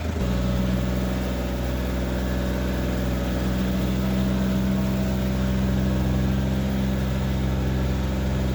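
Kawasaki Mule utility vehicle's engine revving up sharply just after the start and then holding steady, high revs under load as it tries to tow a heavily loaded trailer up a muddy trail.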